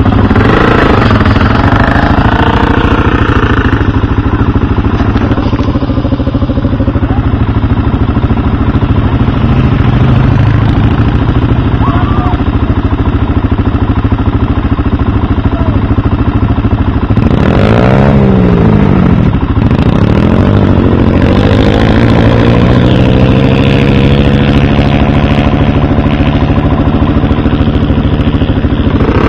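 Quad bike (ATV) engines running on sand, with a steady low rumble underneath. About two-thirds of the way through an engine revs up and down, and near the end a quad pulls away, its engine pitch rising as it accelerates.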